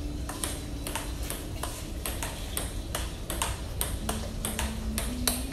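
Table tennis rally: a quick, even run of sharp clicks, several a second, as the celluloid ball strikes the paddles and bounces on the table.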